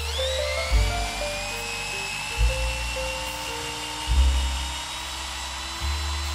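Cordless 18V drill, a Makita clone, boring into a wooden board. Its motor whine rises in pitch as it spins up at the start, then holds steady under load.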